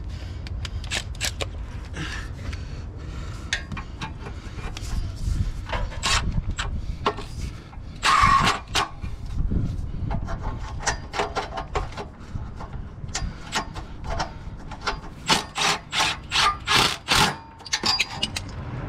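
A ratchet and socket tightening the exhaust flange bolts, with metal clicking and rasping throughout. There is a loud burst about eight seconds in, and near the end a quick run of short strokes, about three a second.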